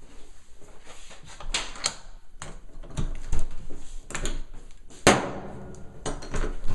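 A hinged house door, the interior door to the garage, being handled and opened: a string of clicks and knocks from the knob and latch, the sharpest about five seconds in, with a few low thumps.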